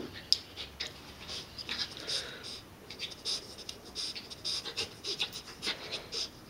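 Small Maltese–Shih Tzu dog rolling and squirming on its back on a shaggy carpet: fur and paws rub and scratch against the pile in quick, irregular bursts, with some panting. There is a sharp tap just after the start.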